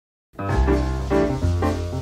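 Background music with a steady beat, starting just after the beginning: chords struck about twice a second over a bass line.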